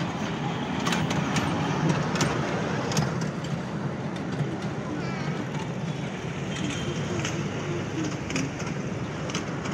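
Steady outdoor din of vehicle engines with distant voices, broken by scattered sharp clicks.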